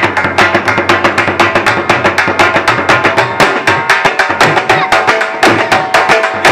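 Punjabi dhol played fast for jhumar dancing: sharp stick strikes several times a second in a steady, driving rhythm.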